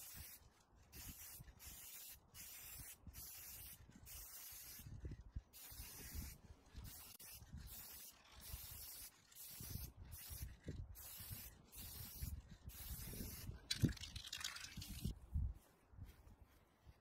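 Aerosol spray-paint can of gold paint spraying in broken hisses that keep cutting out: the nearly empty can is sputtering. Near the end comes a stronger burst of spray and a dull thump.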